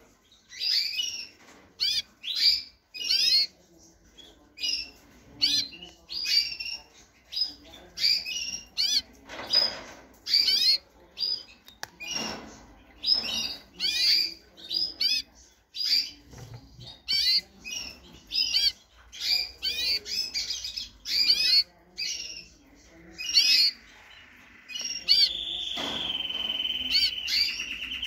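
Domestic canary of the black opal dominant white variety singing: short warbled phrases of quick chirps and gliding whistles with brief pauses between them, then a long, steady, rolling trill near the end.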